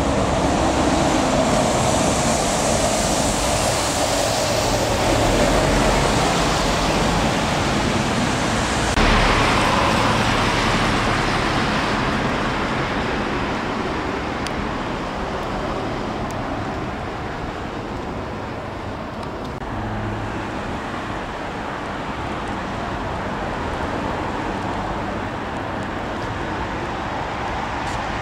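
Steady rush of road traffic, swelling suddenly about nine seconds in and then slowly dying away.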